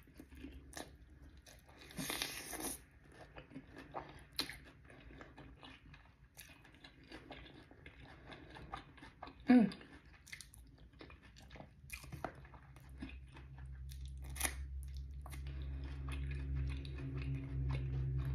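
Close-up eating of crispy fried chicken wings: biting, crunching and chewing with many small crackles and mouth clicks. About halfway through there is one louder short sound that falls in pitch, and a low steady hum builds near the end.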